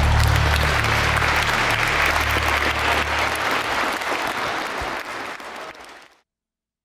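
A crowd applauding, a dense patter of many hands clapping, with background music under it for the first few seconds; the applause fades and cuts off about six seconds in.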